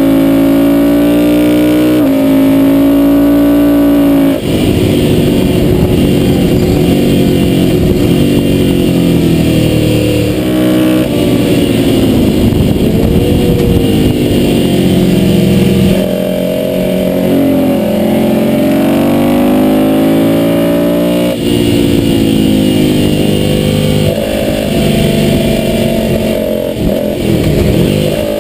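Ducati motorcycle's L-twin engine under hard riding on a race track, pitch climbing and dropping with each gear change and throttle roll-off through the corners, with wind rush on the bike-mounted camera.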